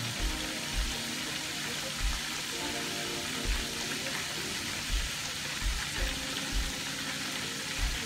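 Background music with a recurring bass beat, over a steady sizzle of frying grease.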